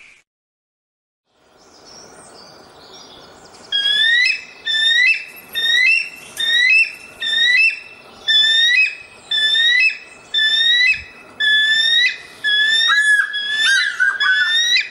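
Eagle calling: a run of about a dozen high, whistled cries, each rising and then falling, roughly one a second, running together in a quicker, tangled burst near the end.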